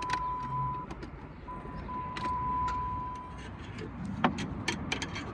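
A steady high-pitched electronic beep, held for about three seconds with a short break near the start, over scattered light clicks and handling noise.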